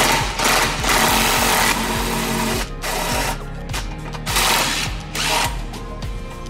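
Cordless impact wrench running on a suspension bolt in bursts: one long burst of about two seconds at the start, then three short bursts. Background music plays underneath.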